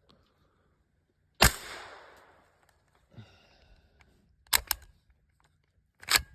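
Suppressed .45 ACP pistol shots from a CMMG Banshee wearing a SilencerCo Omega 45K suppressor. One shot about a second and a half in rings out and dies away, a quick pair follows about four and a half seconds in, and one more comes near the end.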